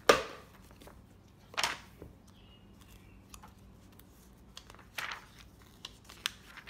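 Pages of a thick hardcover textbook being flipped by hand: a few quick papery swishes, the loudest right at the start and others about a second and a half and about five seconds in, with lighter rustles and taps between.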